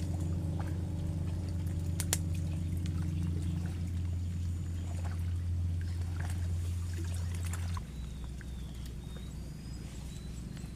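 Steady low motor drone that drops to a lower, quieter hum about eight seconds in, with light water trickling and a sharp click near the start and another about two seconds in.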